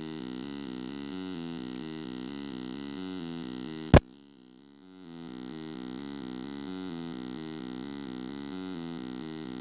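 Homemade Arduino 8-bit wavetable synth with an R2R DAC, played through a small portable speaker, stepping through a repeating 8-step sequence of quick notes in what its builder believes is a triangle wave. A sharp click about four seconds in, after which the sequence drops out for about a second and then comes back.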